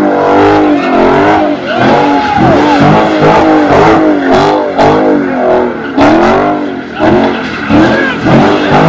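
Car engine revving hard over and over, its pitch swooping up and down every second or so, with tyres squealing as the car spins donuts and burns rubber into smoke.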